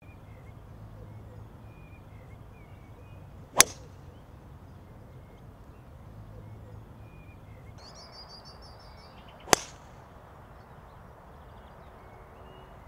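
Two golf drives: the sharp crack of a driver head striking a teed golf ball, once about three and a half seconds in and again about nine and a half seconds in. Birds chirp faintly throughout, with a quick run of high chirps just before the second strike.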